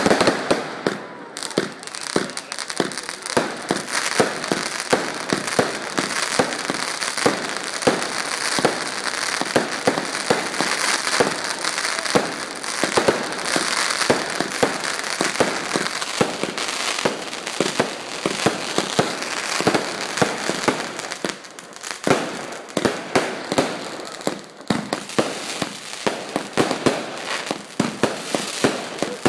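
Fireworks going off in a continuous barrage: rapid sharp bangs, several a second, over dense crackling, thinning briefly about 22 and 25 seconds in.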